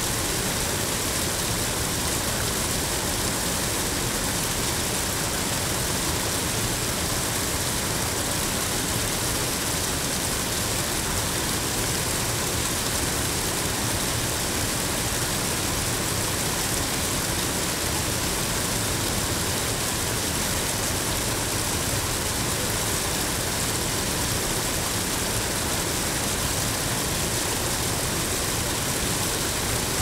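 Steady rushing of falling water: an even, unbroken hiss with no rises or pauses.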